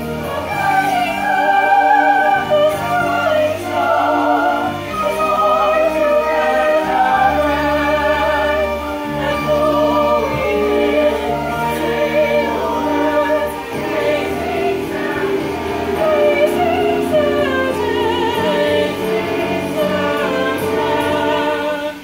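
Teenage girl singing a slow musical-theatre song with wide vibrato, over sustained chords from the backing accompaniment.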